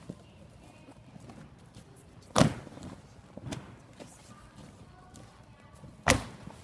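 Two loud thumps, about three and a half seconds apart, of gymnasts landing on a large inflatable air mat.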